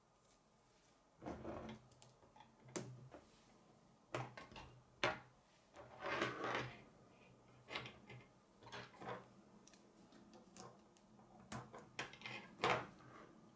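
Plastic K'nex rods and connectors clicking and rattling as they are handled and snapped together. The clicks come irregularly, in short clusters with brief pauses between them.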